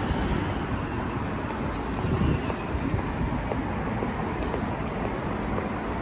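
Steady city background noise: a continuous low rumble of distant traffic.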